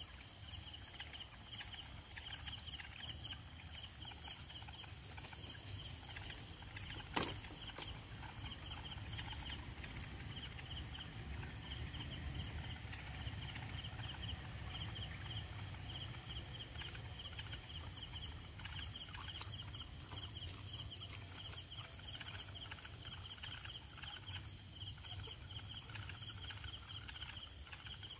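Night insects chirping in steady, even pulses over a low rumble of the net and boat being handled. One sharp click about seven seconds in is the loudest moment.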